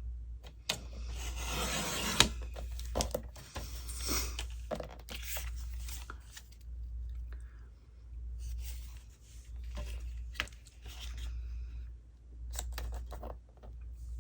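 Paper being worked by hand at a craft table: repeated rustling and scraping strokes with a few sharp clicks, over a steady low hum.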